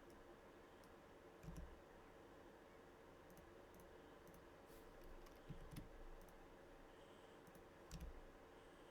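Faint, scattered computer mouse clicks and key presses, about half a dozen, some with a soft thump, over a low steady hum.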